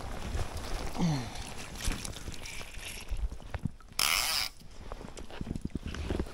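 Creek water moving and lapping, with small knocks and handling sounds. A loud half-second hiss comes about four seconds in.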